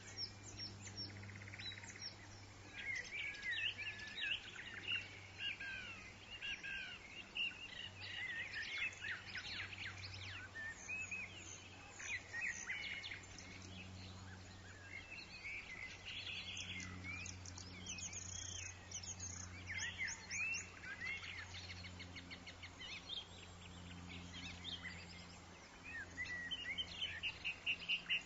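Several woodland songbirds chirping and singing at once, short overlapping calls and trills throughout, with a quick run of rapid chirps near the end. A steady low hum lies underneath.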